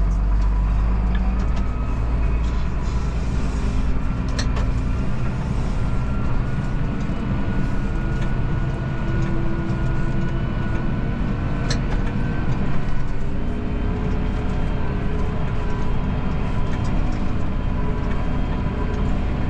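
Farm tractor engine running steadily as it drives, a low even drone with a few sharp clicks or rattles.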